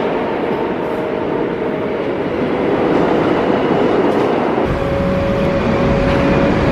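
Subway train running: a steady, loud rumble with a thin high whine over it, changing in character about two-thirds of the way through.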